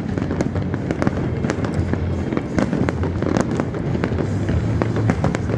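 Fireworks display going off: a dense, irregular run of sharp cracks and pops, several a second, over a steady low rumble of bangs.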